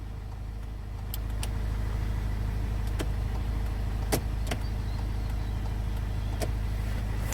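Land Rover Freelander 1 idling with a steady low hum that grows slightly louder about a second in, with a few sharp clicks at irregular intervals.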